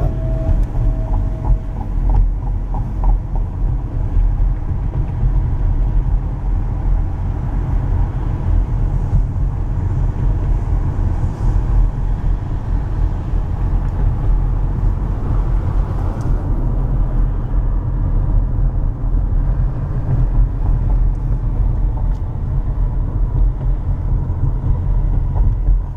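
Steady low rumble of a car in motion, road and wind noise heard from inside the vehicle.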